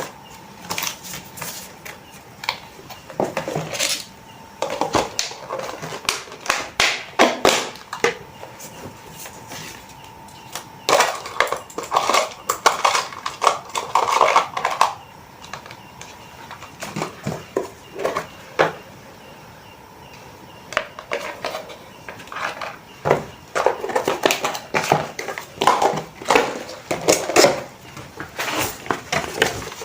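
Irregular clusters of quick clicks, taps and crinkles from small items and packaging being handled, with short pauses between bursts. A faint steady high hum sits underneath and fades out about two-thirds of the way through.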